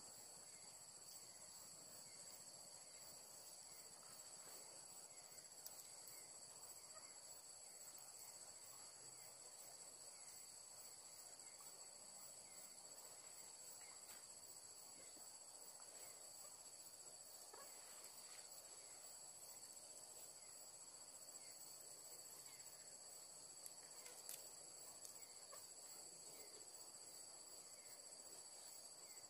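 Faint, steady chorus of night insects in a tropical forest, droning together at several high pitches, with a few small clicks and soft rustles from leaves being handled.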